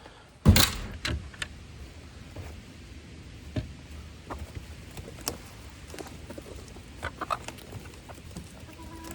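Chicken coop door opened to let the hens out: one loud knock about half a second in, then scattered light clicks and knocks.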